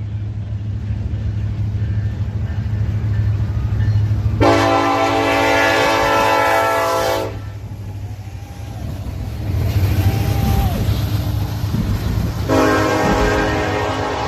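A freight train's diesel locomotive horn sounds two long blasts, a multi-note chord: the first about four seconds in, lasting nearly three seconds, and the second near the end. The low rumble of the diesel locomotives runs underneath.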